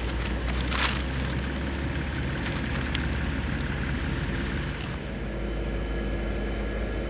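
Crisp curly fries crunching and snapping as they are pulled apart, with their paper wrapper crinkling, over a steady low engine drone. About five seconds in the crackling stops and the drone carries on with a few steady tones.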